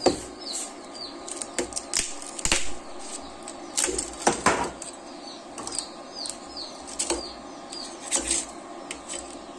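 Irregular clicks and knocks of a freshly printed plastic part being pried loose and lifted off a 3D printer's bed, over a steady machine hum.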